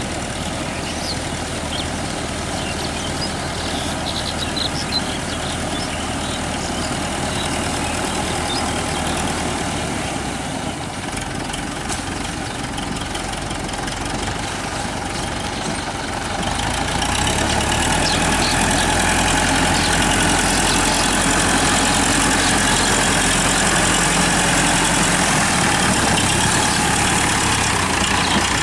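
TAFE 5900 DI tractor's diesel engine running steadily as it works through a flooded paddy field, growing noticeably louder about two-thirds of the way through.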